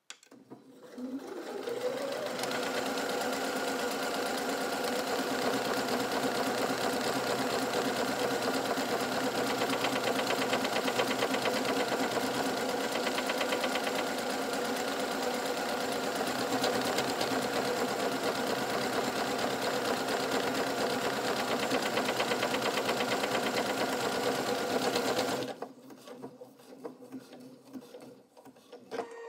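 A Pfaff Quilt Ambition 630 computerised sewing machine stitching. Its motor speeds up with a rising whine over the first two seconds, then runs steadily for over twenty seconds and stops shortly before the end.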